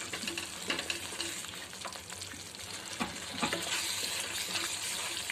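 Thick masala paste sizzling in oil in a kadhai while a slotted spatula stirs it, scraping against the pan with scattered clicks. The spice paste is frying on low heat until it is cooked through.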